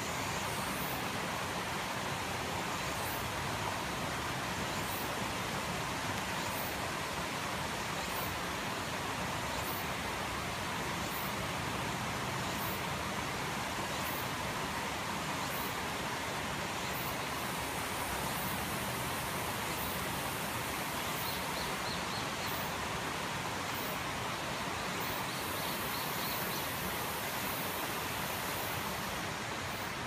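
Mountain stream just above a waterfall, rushing steadily over flat rock ledges as a constant even hiss of water. Faint high ticks repeat about every second and a half over it.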